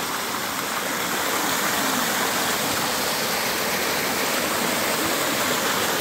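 Small waterfall cascading over rocks and splashing into a shallow pool: a steady rush of falling water.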